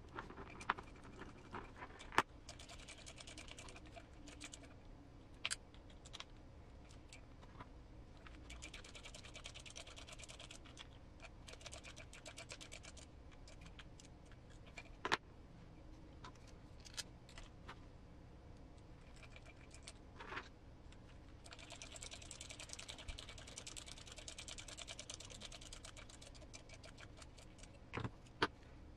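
Faint clicking and tapping of small plastic and metal parts and tools as an RC car transmission is assembled. It comes in several stretches of rapid fine clicking lasting a few seconds each, with single sharp clicks and taps between them.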